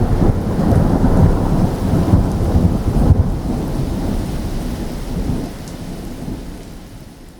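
Thunderstorm: rain with rolling thunder rumbling low, fading out gradually over the last few seconds.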